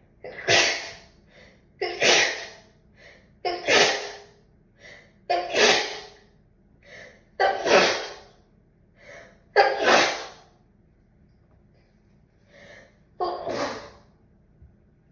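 A person with a cold sneezing seven times in a row, each sneeze led by a sharp in-breath. The sneezes come about two seconds apart, with a longer pause before the last one.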